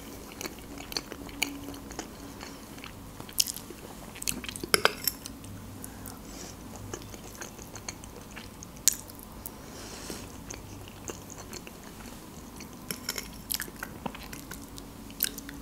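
Close-miked chewing and wet mouth sounds of a person eating herring under a fur coat, the layered beet-and-herring salad, from a spoon. Sharp clicks come and go throughout, the loudest about five and nine seconds in.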